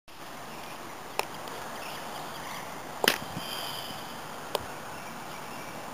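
Steady outdoor background hiss with three sharp clicks, about one, three and four and a half seconds in, the middle one the loudest and doubled.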